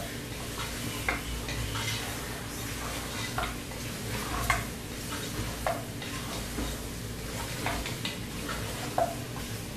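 Mutton in spice masala sizzling as it is fried in a metal pressure cooker, stirred with a spatula that scrapes and knocks against the pot at irregular intervals. This is the bhuna stage, frying the meat in its masala.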